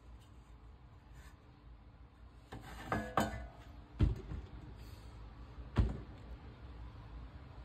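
Light knocks and clatter as a rusty steel pan is set down on a wooden board, a couple of them with a short metallic ring. A single thump near the end as a cordless drill is set down. Between these there is quiet room tone.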